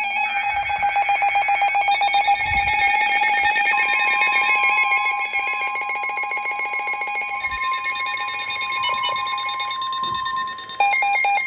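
Electronic emergency-alert tones: a rapidly pulsing beep, joined about four seconds in by a steady high tone. This is the alert signal that leads into a Special Marine Warning broadcast.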